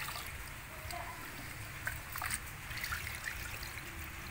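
Thin stream of tap water trickling into a pot of rice while a hand swishes the rice through the water, with small splashes and sloshes: rinsing rice before cooking.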